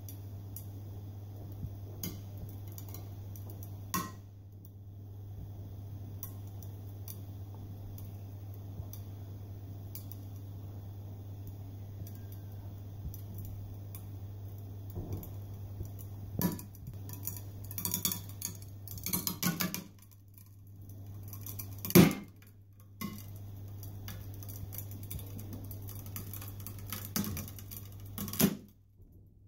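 70 mm webbing under load in a Tinius Olsen 50ST tensile testing machine with hydraulic grips, giving off sharp cracks and snaps over a steady low hum. The first crack comes about four seconds in, a cluster follows past the middle, and the loudest snap comes about three-quarters of the way through.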